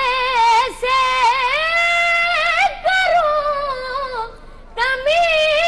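A boy chanting a manqabat (devotional Urdu poem) in a high, unaccompanied voice, holding long notes with wavering ornaments. He breaks off briefly twice to breathe, near the middle.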